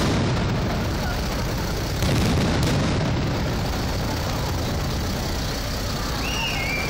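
Aerial firework shells bursting in rapid succession, a continuous rumble of booms with sharp reports, stepping louder about two seconds in. A brief wavering whistle near the end.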